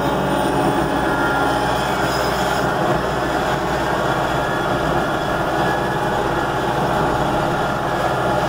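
A vehicle's engine running steadily while it is driven, a continuous mechanical drone with road noise.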